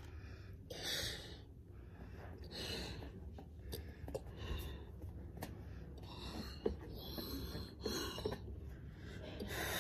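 A person blowing up a latex balloon: a string of quick breaths in and puffs of air blown into the balloon, about one a second, with a few faint clicks between them.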